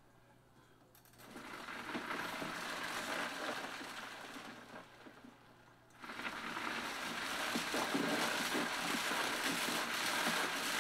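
Five-gallon Bubble Magic ice-water extraction machine agitating, its agitator churning the ice water and plant material. It starts about a second in, runs for roughly four seconds, stops briefly, then churns again for another five seconds.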